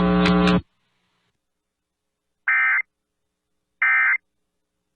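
Emergency Alert System end-of-message signal: short bursts of digital data tones, the EAS 'NNNN' code that closes an alert. Two bursts are heard about a second and a half apart, after the preceding broadcast audio cuts off about half a second in.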